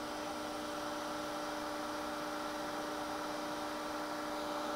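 Steady electric hum of the idling Shigiya GUA-30-150 cylindrical grinder, its grinding wheel stopped. The hum holds a few fixed tones without change.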